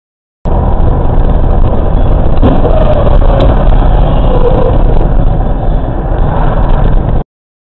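Loud, low rumble of a motor vehicle on the move. It cuts in suddenly about half a second in and stops abruptly near the end.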